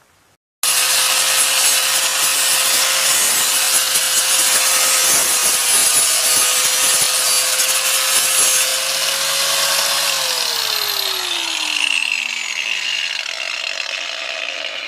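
Electric power tool working wood: it runs at a steady speed for about nine seconds, then is switched off and its motor whine falls in pitch as it winds down.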